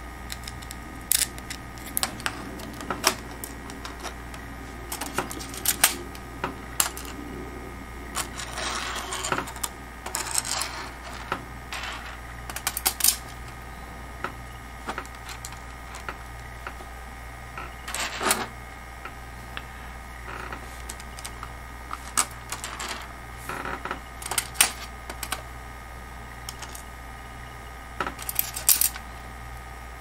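Irregular small clicks and taps of metal standoffs and tiny screws against a clear acrylic case panel as they are fitted by hand, over a steady low hum.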